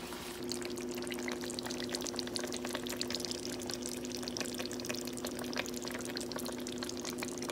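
Chicken karahi gravy with cream simmering in a wok, bubbling and crackling with many small pops, over a steady low hum.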